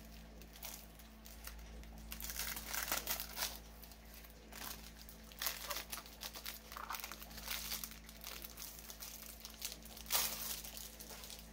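Plastic wrapping crinkling in irregular bursts as a rolled diamond-painting canvas is handled and unrolled, loudest about three seconds in and again near the end.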